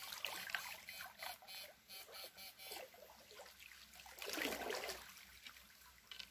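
Shallow river water splashing and trickling around a wading man and his electrode poles, with a fast, regular ticking through the first few seconds and a louder splash a little after four seconds in.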